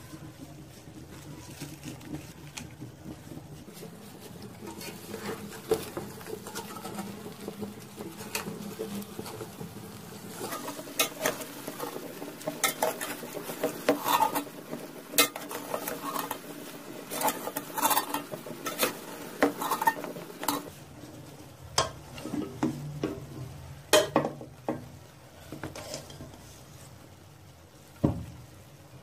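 Metal spoon stirring cooked biryani rice in a metal pot, scraping and clinking against the pot's sides, busiest in the middle, with a sharp knock of utensil on pot near the end.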